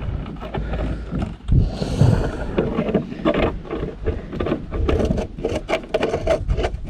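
A 10mm socket and extension backing out the tail light's top bolt. Scrapes, then a fast run of clicks from about three seconds in, as a ratchet turns the loosened bolt.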